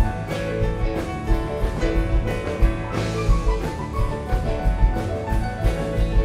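Live rock band playing an instrumental passage: a drum kit keeps a steady beat under electric keyboard and electric guitar.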